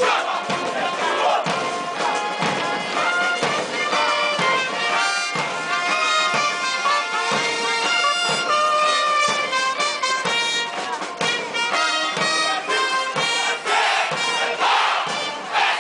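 Band music with wind instruments over a steady beat. Near the end a burst of crowd shouting comes in over it.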